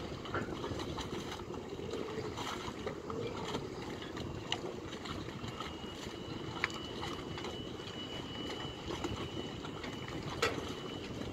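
Harbour ambience: a steady low rumble of wind and boat noise by the water, with a few sharp clicks and a thin high steady tone that starts about halfway through.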